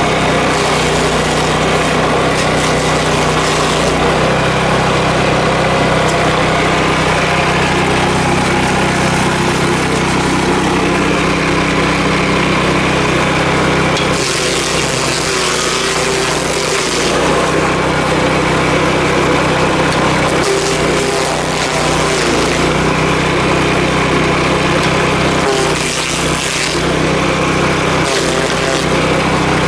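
Engine of a Power King stump grinder running steadily under load, with short bursts of louder, hissy grinding noise about halfway through and again near the end.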